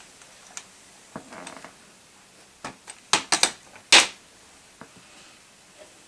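Small objects being handled on a wooden bedside table: a short rustle, then a quick run of sharp clicks and knocks, the loudest about four seconds in.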